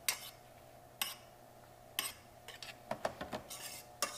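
A utensil scraping and clinking against a stainless steel sauté pan as tomatoes and peppers are stirred: single strokes about once a second, then a quicker run of scrapes in the second half.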